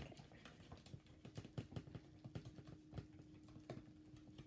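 Freshly activated white slime being squished and worked by hand, giving faint, irregular sticky clicks and squelches.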